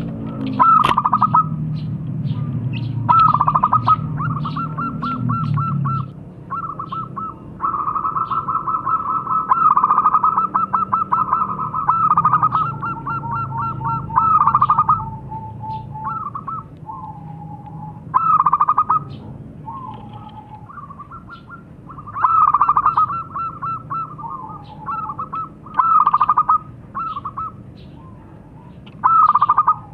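Zebra doves (perkutut) cooing: about a dozen bursts of fast, stuttering notes, each a second or two long, with a longer unbroken run about eight to fifteen seconds in.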